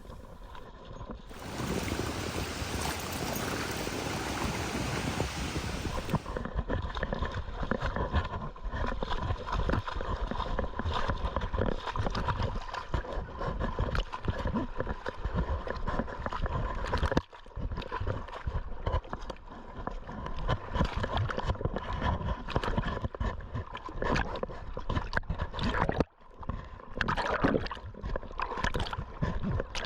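Rubbing and knocking noise from a camera worn by a dog, with a rushing, water-like noise beneath it. A dense steady hiss fills the first few seconds, then the irregular knocks and rubs run on.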